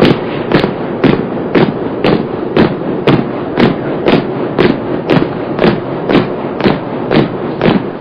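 Marching footsteps: an even beat of steps, about two a second, over a steady shuffling noise, cutting off suddenly at the end.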